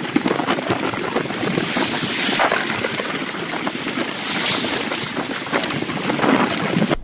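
Storm wind gusting, a loud steady rush that swells about two seconds in, again around four and a half seconds and near the end, then cuts off suddenly.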